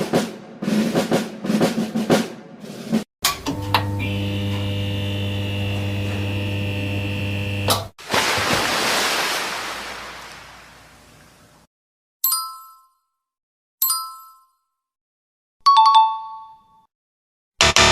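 A run of separate editing sound effects. First come quick percussive hits, then a steady electric buzz for about five seconds. After that a hiss swells and fades away, then three short bell-like dings a second and a half apart, and finally a brief louder hit near the end.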